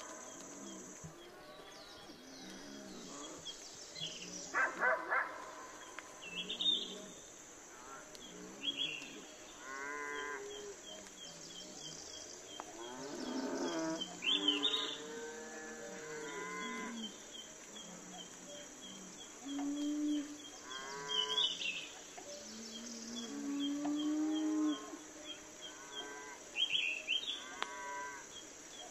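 Repeated animal calls, each a second or two long and some bending in pitch, heard many times over a steady high hiss and faint chirping at several per second.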